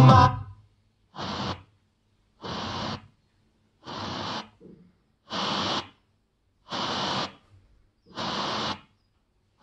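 FM radio from a Honda Breeze car head unit being tuned across empty frequencies: six short bursts of static hiss, each about half a second long and evenly spaced, with silence between them.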